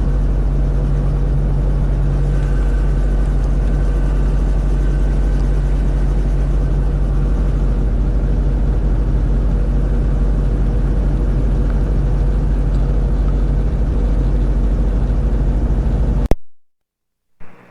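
Robinson R22 Beta II helicopter's four-cylinder Lycoming engine and rotor running steadily on the ground just after start-up, heard through the headset intercom as a steady low drone. The sound cuts off abruptly about 16 seconds in.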